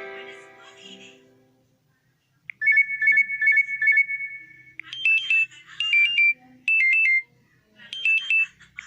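Built-in phone tones from an LG Magna playing through its speaker. A plucked-sounding melody dies away, then after a short pause a new tone starts: a fast electronic trill on two pitches for about two seconds, followed by a run of short chirping bleeps.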